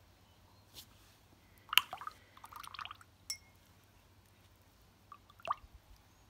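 Paintbrush being rinsed in a glass of water: clinks of the brush against the glass with small splashes, loudest just under two seconds in, then a few more taps a little before the end.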